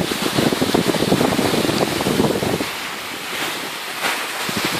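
Rushing, gritty noise of skis sliding and scraping over packed snow, mixed with wind buffeting the microphone. It is heaviest at first and eases off about two and a half seconds in.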